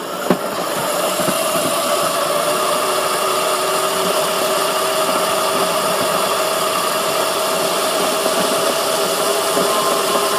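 Razor electric dirt bike's motor and chain drive running with a steady whine that holds its pitch, after a couple of sharp clicks right at the start.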